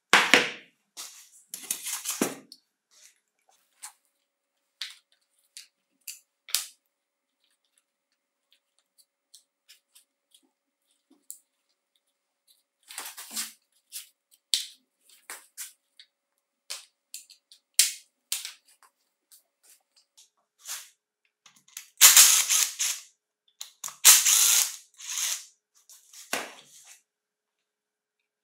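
Scattered clicks, clinks and rattles of a Ryobi ESK-3500 chainsaw's metal and plastic parts being taken apart by hand on a sheet-metal tray. There is a sharp clatter right at the start, and two longer, louder rattles come about three-quarters of the way through.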